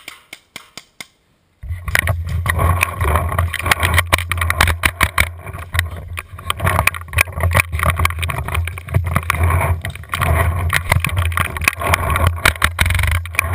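Paintball markers firing in quick succession, about four pops a second. About a second and a half in, they give way to loud low wind and handling noise from a camera mounted on the barrel of a paintball marker as it is carried, with irregular knocks and rattles.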